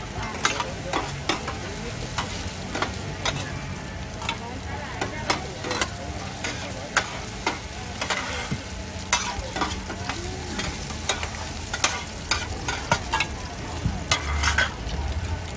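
Mussel and egg pancakes sizzling in oil on a large flat wok. Metal spatulas make frequent sharp clicks and scrapes against the pan.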